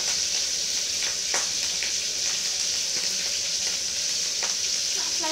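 A steady high-pitched hiss, with a few faint clicks.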